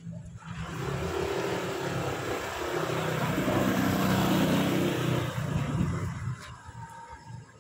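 Honda PCX 160 scooter's single-cylinder four-stroke engine ridden past close by. It grows to its loudest about halfway through, then fades away.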